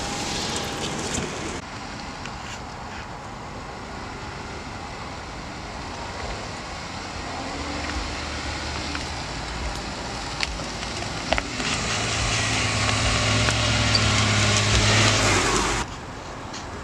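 Jeep Wrangler engine running as the Jeep drives off-road over muddy, rutted track, with a steady rush of tyre and terrain noise. About twelve seconds in the engine drone grows louder and steadier, then cuts off suddenly near the end.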